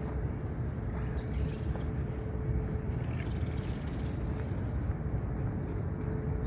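Steady low outdoor rumble with a faint steady hum, and a few faint high bird chirps about a second in.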